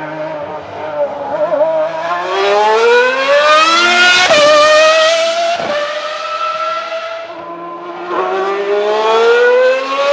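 Ferrari 412 T2 Formula 1 car's V12 engine accelerating on track: revs climb, drop sharply at upshifts about four and five and a half seconds in, dip a little around eight seconds, then climb again.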